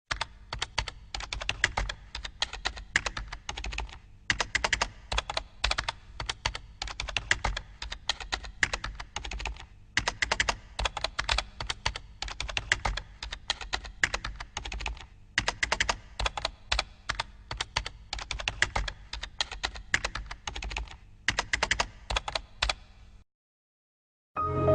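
Typing on a computer keyboard: quick runs of keystrokes broken by short pauses, over a faint steady hum. The typing stops about 23 seconds in, and music starts just at the end.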